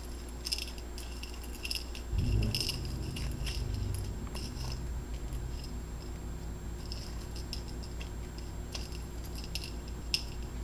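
Shaped candy sprinkles rattling and clicking against a ceramic bowl as a ball of cookie dough is pressed and turned in them: scattered light ticks. A dull low rumble starts about two seconds in.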